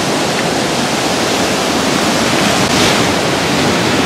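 Ocean surf breaking on the shore, a steady rush of waves that swells a little about three seconds in.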